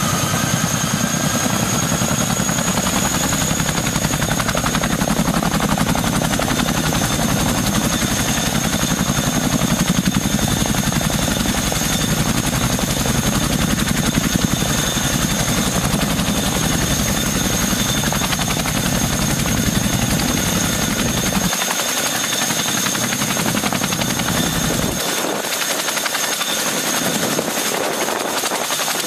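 CH-47 Chinook's twin T55 turboshaft engines and tandem rotors running on the ground: a rapid, steady rotor chop under a constant high turbine whine. The deepest part of the rotor beat drops away about 21 seconds in.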